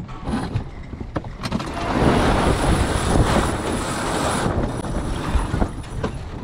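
An X-99 racing sailboat tacking: its sails flogging and the sheets running as the bow swings through the wind. The rattling rush gets loud about two seconds in and lasts about three seconds, then eases.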